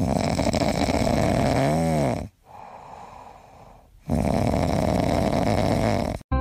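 Snoring: two long, loud, noisy breaths of about two seconds each with a quieter breath between them. The first carries a brief whistling tone that rises and falls. It cuts off abruptly near the end.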